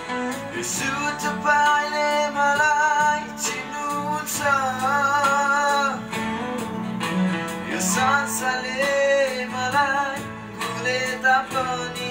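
A man singing a Nepali worship song into a microphone over guitar accompaniment, holding long, wavering notes.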